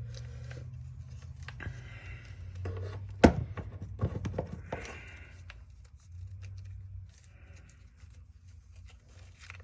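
Parts of a DeWalt DCF885 impact driver being handled during disassembly, as the motor is worked out of its housing: scraping and light clicks, with one sharp knock about three seconds in.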